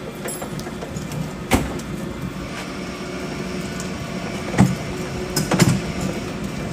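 Steel workshop trolley carrying a heavy swivel housing, rolling across a concrete floor: a steady rumble from the wheels with a sharp clunk about a second and a half in and a few more clunks and rattles near the end.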